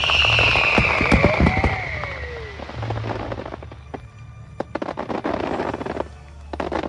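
Aerial fireworks going off: a high whistle falling in pitch over the first two or three seconds, then a dense run of sharp crackles from exploding shells.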